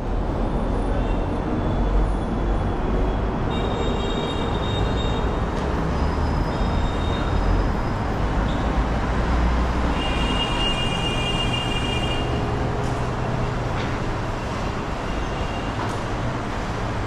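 Steady rumble of busy road traffic, with a few brief high squeals.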